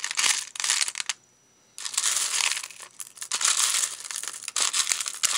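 Plastic beads rattling and clattering in a plastic storage box as a hand rummages through them, with a short gap just after a second in.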